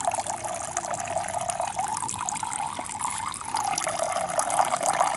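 A thin stream of filtered water from a hand-pump drinking-water filter splashing steadily into a plastic jug as it fills.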